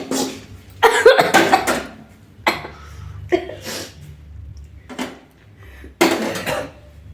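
Repeated coughing set off by the pungent fumes of dried red chillies and chilli powder cooking in a pan, with metal utensils clattering against the pan between the coughs.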